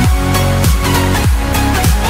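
Background electronic dance music with a heavy kick drum about every 0.6 seconds, each beat dropping in pitch.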